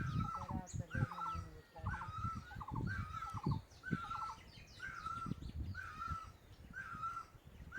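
An animal call repeated very regularly, about once a second, over irregular low thumps.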